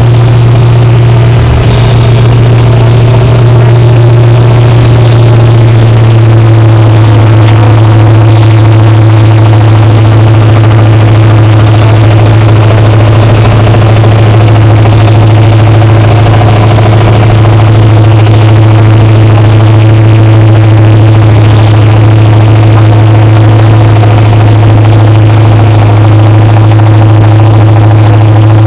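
Massey Ferguson MF 1155 diesel tractor engine under full load as it drags a tractor-pulling sled, a loud steady drone that holds its pitch.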